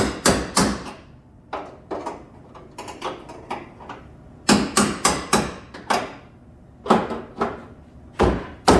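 Hammer blows on car-body sheet metal: a string of sharp, irregular strikes in clusters, each with a brief metallic ring.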